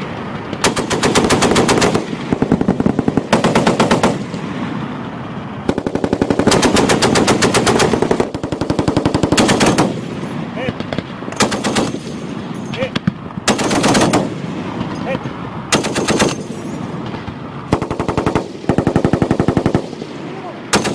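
M2 Browning .50-caliber heavy machine gun firing a series of short bursts, each lasting about one to two seconds, with brief pauses between them.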